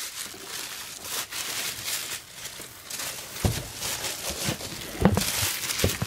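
Cardboard packaging rubbing and scraping as a boxed electric kettle is slid out of its outer carton, with a few dull knocks about three and a half and five seconds in.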